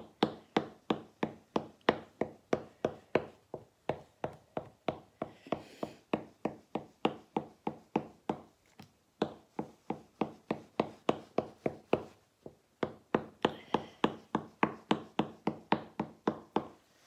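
A fork pricking a sheet of cream-filled puff pastry, each stab a sharp tap through the dough, about three a second with a few brief pauses.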